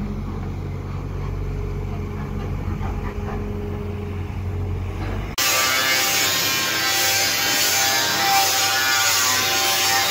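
Kobelco excavator's diesel engine running with a steady low rumble. About five seconds in, this cuts off abruptly to a handheld electric angle grinder cutting corrugated sheet steel: a louder, hissing screech with a high whine.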